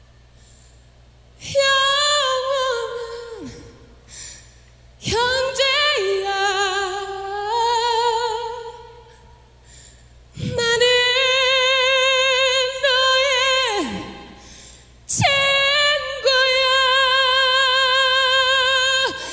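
A female vocalist sings four long phrases separated by short breaths. She holds high notes with wide vibrato, and each phrase starts with a quick upward slide.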